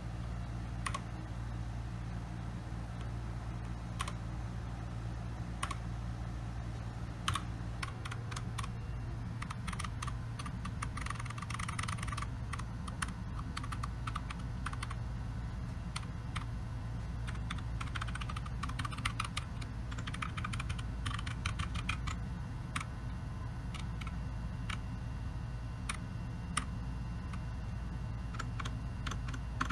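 Keychron K2 mechanical keyboard with brown switches being typed on: scattered single keystrokes, then two spells of fast typing, about a third of the way in and again past the middle. A steady low hum runs underneath.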